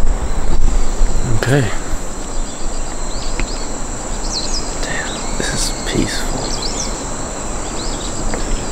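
A steady, high-pitched insect drone, with short bird chirps scattered over it. A low rumble is strongest in the first second.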